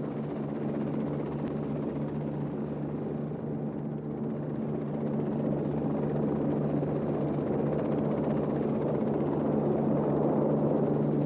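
Lockheed XH-51 helicopter in flight: a steady rotor and engine drone that grows gradually louder.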